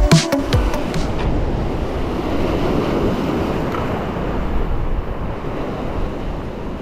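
Electronic music stops about a second in. After it come waves washing over shore rocks and wind on the microphone.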